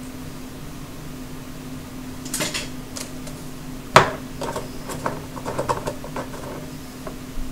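Kitchen utensils and containers clattering while seasoning is measured into a mixing bowl: scattered knocks and clicks, the loudest a single sharp knock about four seconds in, over a steady low hum.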